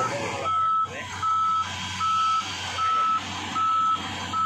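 Wheel loader's backup alarm beeping steadily, a single high tone about once every three-quarters of a second, over the loader's diesel engine running.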